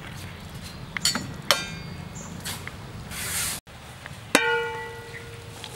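Aluminium cooking pot lid set down on the pot with a sharp clank that rings on for about a second and a half, several metallic tones fading together. Earlier there are two light metal clinks a moment apart.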